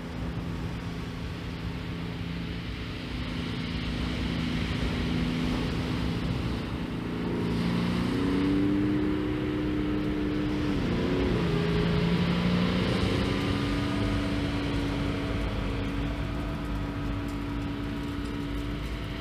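A steady motor-like drone that steps up in pitch about eight seconds in, dips and wobbles around eleven seconds, then holds steady. Underneath it is wind noise and the wash of small waves on the shingle.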